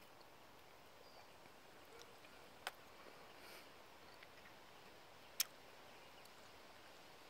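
Near-silent outdoor quiet, broken twice by a sharp click about three seconds apart, the second louder, with faint short high chirps in the background.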